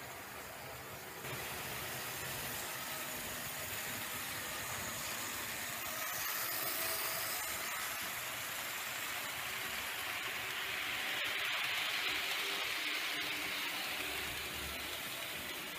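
HO scale model train running on the layout's metal track: a steady rolling hiss and rumble of wheels on rail. It gets louder about a second in, and louder again as the train of tank wagons passes close by, then eases off near the end.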